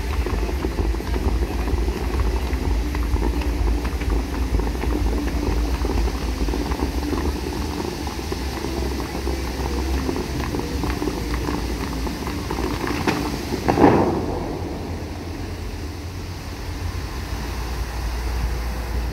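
Bellagio fountain water jets spraying and splashing in a steady rush over a low rumble, with one louder surge of water about fourteen seconds in.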